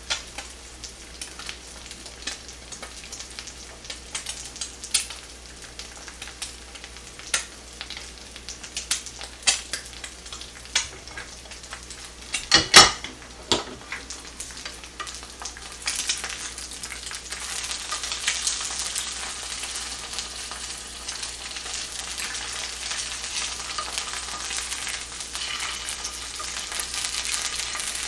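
Eggs frying in a non-stick pan on a gas burner: a light sizzle with scattered sharp pops. There is a short clatter of loud knocks about halfway through. After that the sizzle turns louder and steadier.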